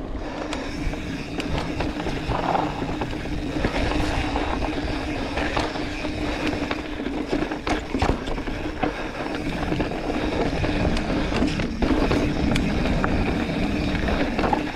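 Mountain bike riding down a dry dirt trail: wind rumbling on the camera mic and tyres rolling over dirt, with scattered knocks and rattles from the bike over bumps, the sharpest about eight seconds in.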